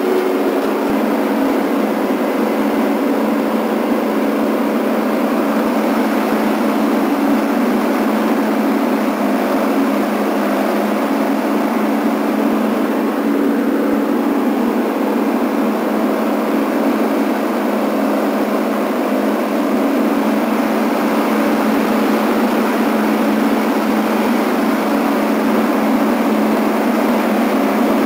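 John Deere D170 lawn tractor's V-twin engine running steadily under load, with the mower deck's blades spinning as it cuts grass.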